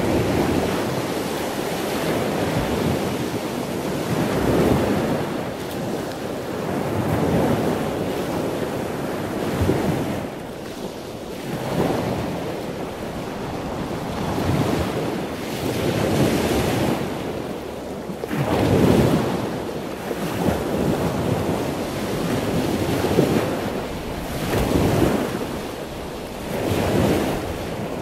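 Floodwater sloshing and splashing around the front tyre of a vehicle driving slowly through a flooded street, swelling and easing every two seconds or so as the wheel pushes through the water.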